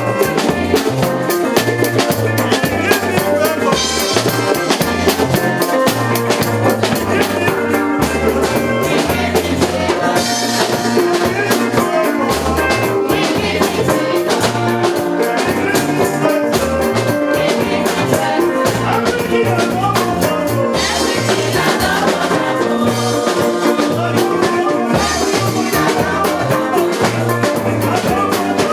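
Music with a steady drum-kit beat and a bass line.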